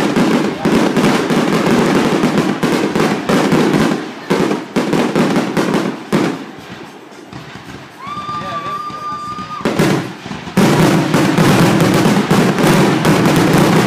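Fireworks display: aerial shells bursting in rapid, continuous cracking and banging. The barrage thins out past the middle, where a steady high whistle holds for a couple of seconds, and then returns as a dense, loud volley near the end.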